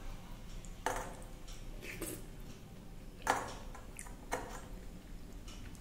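Fingers mixing rice and curry on a stainless-steel plate, with four short sharp clicks against the metal, the loudest about three seconds in.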